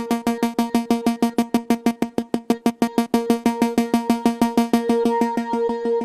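SynthMaster Player software synth playing its 'ARP Intertwined ARK' arpeggiator preset: a fast, steady pattern of short repeated synth notes, about nine a second. Around five seconds in the notes run together and soften as the arpeggio-length XY pad is moved.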